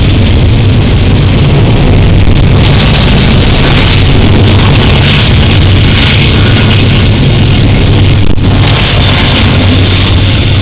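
Several diesel-electric freight locomotives passing directly below, running loud and steady with a deep engine hum.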